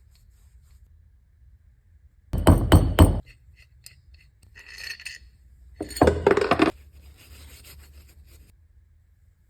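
Hard objects clinking and scraping against each other in two loud clattering bouts about three seconds apart, with a fainter ringing clink between them.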